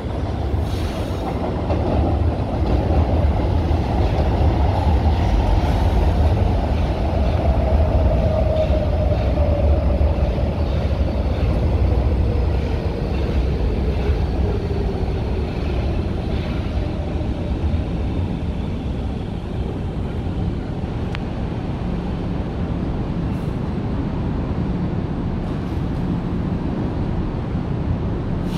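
São Paulo Metro train running in along the elevated track: a heavy low rumble with a whine that falls steadily in pitch over several seconds, easing after about 18 seconds into a steadier, quieter rumble.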